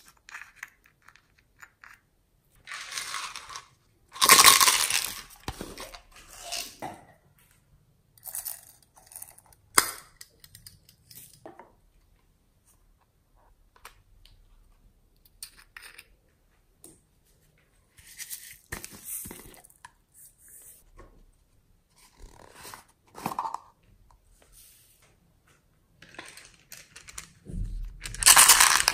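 Small clear plastic pots of glitter and sprinkles being handled, opened and tipped out, in short bursts of crackling, clicking and scraping separated by pauses. The loudest bursts come about four seconds in and near the end, the last with a low thud as a larger plastic slime jar is picked up.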